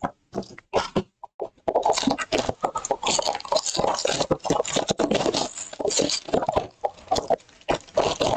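Hands opening a cardboard trading-card blaster box: a few light taps and clicks, then from about two seconds in dense crackling and rustling as the box is torn open and its plastic-wrapped card packs are pulled out.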